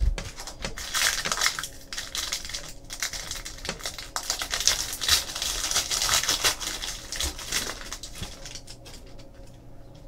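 Crinkling and rustling of a trading card pack's wrapper and cards being handled, a dense crackle that fades out near the end.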